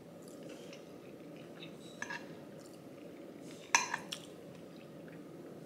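A metal fork clinking and scraping against a dinner plate a few times, the loudest clink a little under four seconds in, over a steady low background hum.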